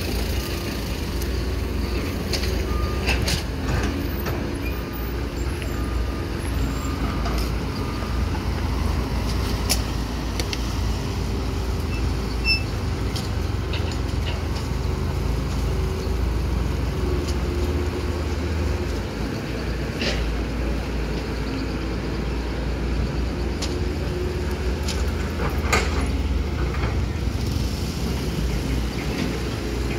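Hydraulic crawler excavator's diesel engine running steadily under load while it digs, with a few sharp knocks scattered through.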